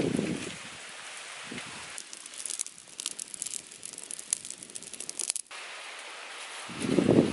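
Small wood fire crackling and popping, with quick irregular snaps for a few seconds. It begins with a person blowing into the smouldering kindling to fan it, and near the end there is a low gusty rumble.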